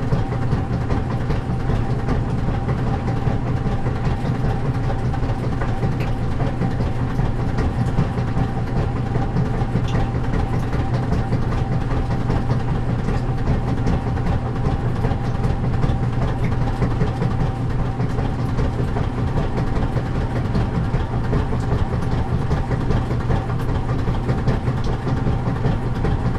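A steady, loud, low mechanical rumble with a constant hum, like a heavy engine running, unchanging throughout.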